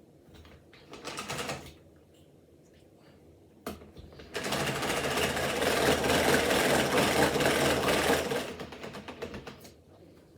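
A rapid mechanical rattle that starts about four seconds in, runs for about four seconds and then tapers off, after a brief softer scrape about a second in.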